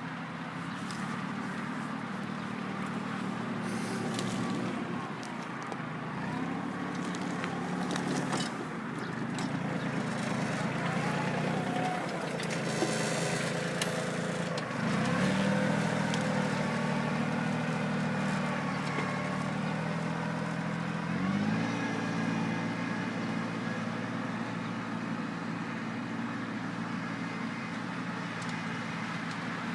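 Kioti CK2810 compact tractor's three-cylinder diesel engine running steadily while ploughing. The engine note dips about fifteen seconds in and rises again a little past twenty seconds in.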